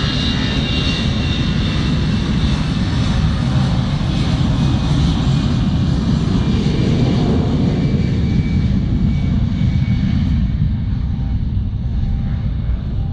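Airbus A320's jet engines at take-off power: a steady, loud rumble with a hiss above it. The hiss fades after about ten seconds while the rumble carries on.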